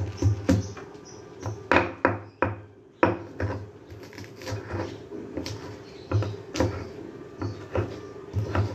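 Stone pestle pounding and crushing garlic, shallots and candlenuts in a stone mortar (cobek) into a spice paste: irregular sharp knocks, about one or two a second.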